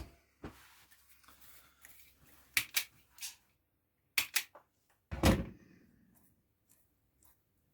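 A few sharp clicks and knocks of hard parts being handled, then a louder, deeper thump about five seconds in.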